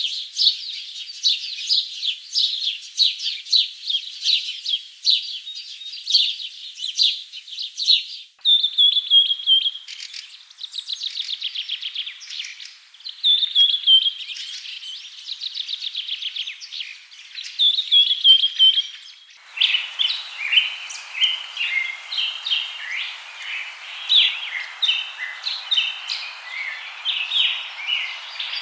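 Songbirds chirping and singing, high-pitched, in three spliced recordings: first busy overlapping chirps, then songs with fast rattling trills from about 8 seconds in, then chirping over a steady hiss from about 19 seconds in.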